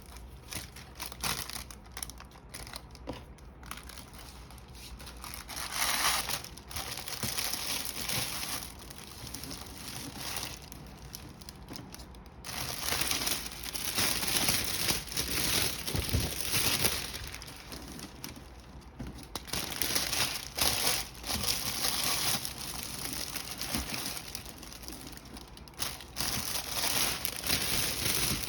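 Gift wrap crinkling and rustling in irregular bursts as it is handled and drawn around a gift basket.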